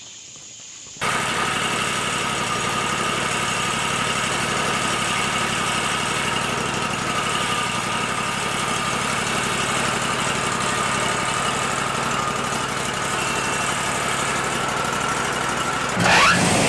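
Wood-Mizer LT40 hydraulic band sawmill running steadily at idle, coming in abruptly about a second in. Near the end it revs up with a rising whine.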